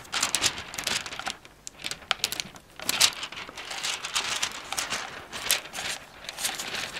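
Hands handling a plastic flying-dragon toy, its parts being fitted and hooked back together: irregular light clicks and rustling.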